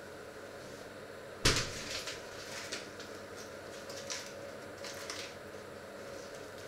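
Kitchen handling noise: one sharp bang about a second and a half in, followed by a few lighter knocks and clicks, over a faint steady hum.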